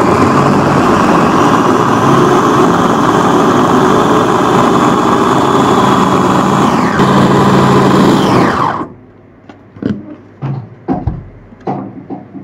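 Two-speed electric food chopper with a stainless-steel motor housing running steadily as it minces chicken, onion and tomato in its bowl, its pitch falling as it winds down and stops about nine seconds in. A few light knocks and clicks follow.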